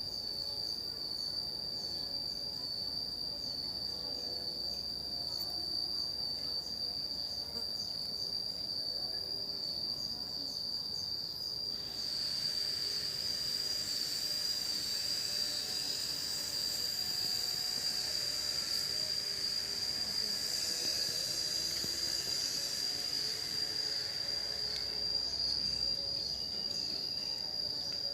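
Cicadas singing: a steady, high-pitched drone, joined about twelve seconds in by a louder hissing chorus that eases off near the end.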